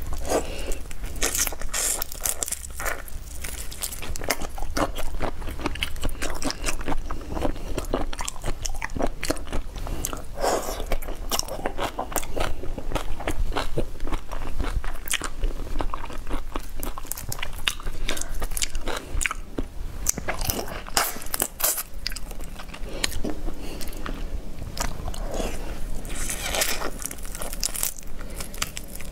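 Close-miked biting and chewing of whole prawns, with the shells crunching and crackling irregularly throughout, along with wet peeling of the shellfish.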